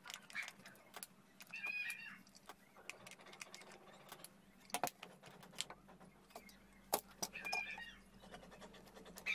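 Scattered clicks, taps and knocks of a plastic ceiling-fan housing and its screws being handled as the fan is taken apart, with a few short high chirping calls mixed in twice.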